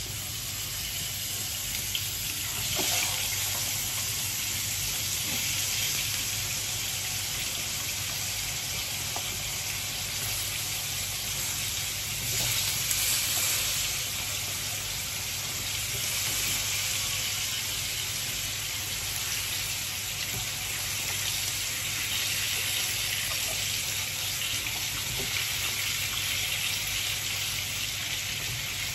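Raw potato slices sizzling in hot oil in a frying pan as they are laid in one after another: a steady hiss that swells a little each time more slices go in.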